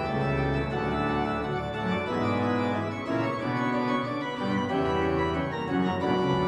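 Church pipe organ playing full chords over a deep pedal bass line, the notes changing every fraction of a second; the bass drops out briefly about four seconds in.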